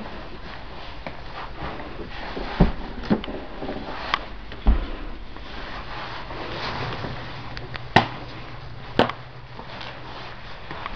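Handling and movement noise in a room with a wooden floor: a low rustle with about six separate knocks and clicks, the sharpest two about a second apart near the end.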